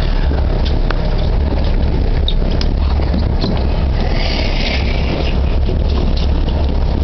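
Boat engine running with a steady low drone, with scattered knocks and scrapes as the tuna's body and the tail ropes move against the gunwale. A brief hiss comes about four seconds in.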